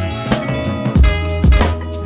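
Background music with a steady drum beat, a heavy low drum hit about twice a second under held instrument notes.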